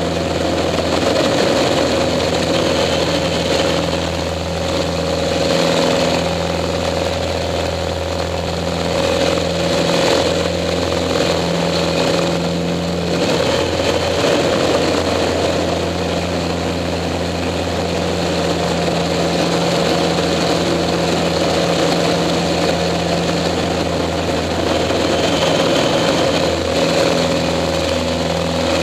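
Pitts S-2A biplane's engine and propeller running steadily under power through aerobatic manoeuvres, a continuous drone whose tone shifts briefly a few times.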